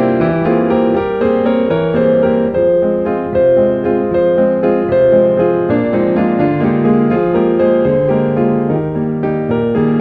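Background piano music: a classical-style piece played as a steady run of melody notes over a lower bass line.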